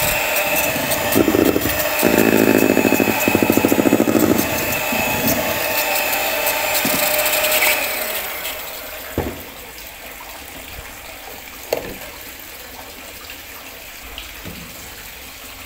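Miyako electric hand mixer running at its lowest speed, its beaters churning cake batter in a metal bowl with a steady whir; it is switched off about eight seconds in. After that, a spatula scrapes and knocks a couple of times against the bowl.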